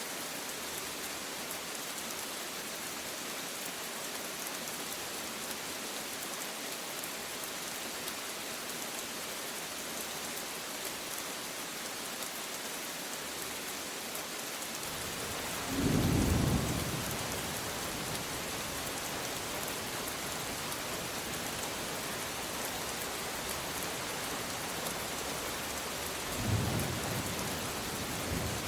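Steady heavy rain pattering down, with a loud roll of thunder about halfway through and a second, weaker rumble near the end.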